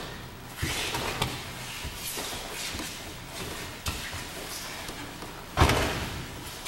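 Bodies hitting mats during aikido throws: a thud about half a second in, softer scuffs and rustling after it, then the loudest, heavier thud near the end as the thrown partner lands on the mat in a breakfall.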